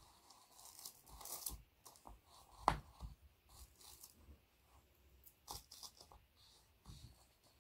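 Two graphite pencils held in fists scratching and dragging across a large sheet of paper, in irregular short strokes, with the paper crinkling. One sharp tap about two and a half seconds in is the loudest sound.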